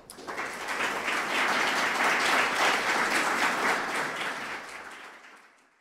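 Audience applauding, swelling over the first second, holding, then dying away near the end.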